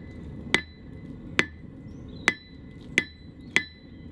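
Rounding hammer striking red-hot steel on an anvil, straightening a salvaged bolt. About six blows land under a second apart, coming slightly faster toward the end, and each leaves a bright ring from the anvil.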